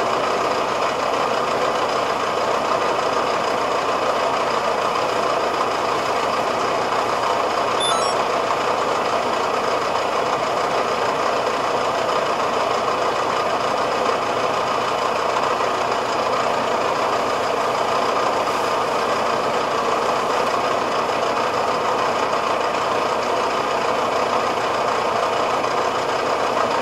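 Tractor's diesel engine idling steadily.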